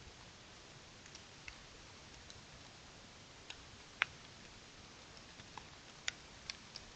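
Scattered small sharp ticks over a faint steady hiss. The loudest tick comes about four seconds in, and a quick group of three follows near the end.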